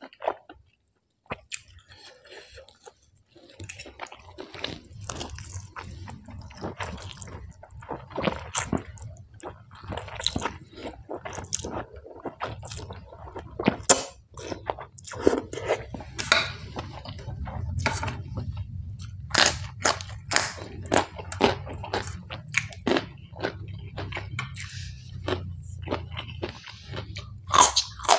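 Close-up eating sounds: crunching and chewing raw vegetables and slurping rice noodles, with sharp clicks throughout. It starts after a few seconds of near silence.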